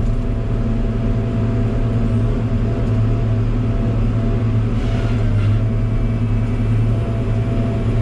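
Log loader's diesel engine running steadily with a constant low hum, with no change in speed.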